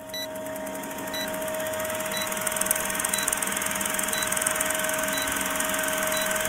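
Film-projector countdown sound effect: a steady projector whir with film hiss, and a short faint tick about once a second, in time with the countdown.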